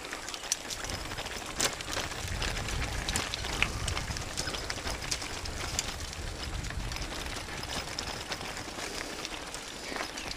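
Bicycle tyres rolling down a loose-stone dirt track, crunching over gravel with many scattered clicks and rattles. Wind rumbles on the microphone, most strongly from a couple of seconds in until past the middle.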